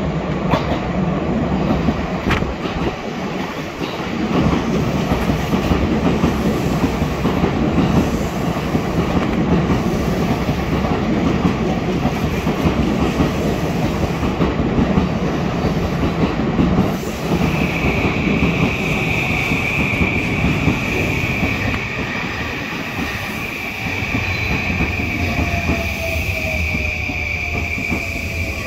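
JR East E235 series 1000 electric train pulling into a station platform, with a steady rolling rumble and a couple of sharp clicks from the wheels over rail joints early on. From a bit over halfway a high steady whine sets in, and near the end a lower whine falls in pitch as the train slows.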